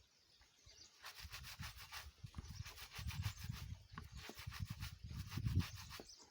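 Wet clothes being scrubbed by hand, cloth rubbed against cloth in quick rhythmic strokes, starting about a second in.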